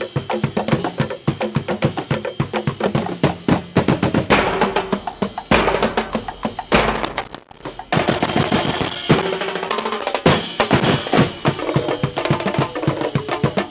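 Drum-and-percussion music accompanying a festival dance, a fast run of drum strokes. About four seconds in it thickens into a drum roll, breaks off briefly past the middle, then the beat starts up again.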